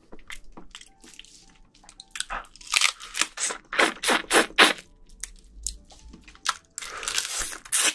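Close-miked eating of soy-marinated raw crab: crunching and wet squishing as the shell and legs are bitten and the meat is sucked out. The strokes come thickest and loudest in the middle, with a longer wet stretch near the end.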